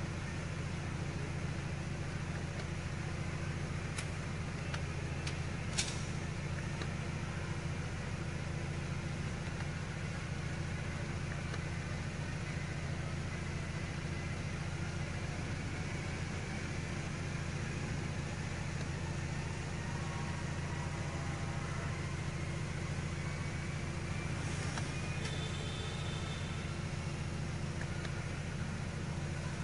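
Steady low hum of an idling vehicle, with a few faint sharp clicks about four to six seconds in.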